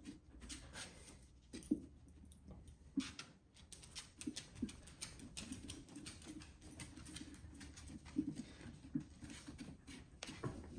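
A small carving knife cutting through a pumpkin's rind in short strokes: irregular crisp crunching and clicking.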